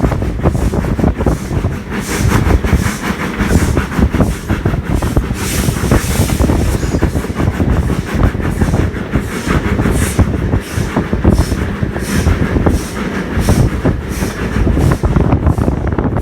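Steam locomotive working under load, its exhaust chuffing in a steady beat, heard from a carriage behind it over the rumble and clatter of the coaches on the track.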